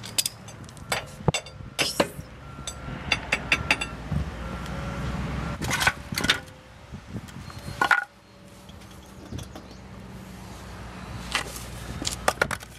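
Sharp metal clinks and clanks of a steel jack handle working an old bottle jack to lower a van, some with a short metallic ring, with a swell of low noise in the middle; a final cluster of clanks near the end as the jack is pulled out from under the axle.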